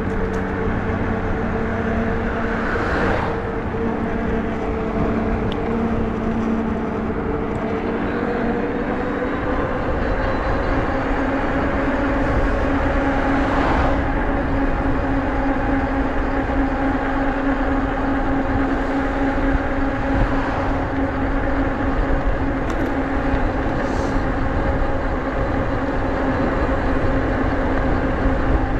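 Nakto F6 electric fat bike riding at speed on pavement: a steady hum from its motor and fat tyres, which rises a little in pitch as the bike speeds up, over a low rumble of wind on the microphone, with a couple of brief whooshes.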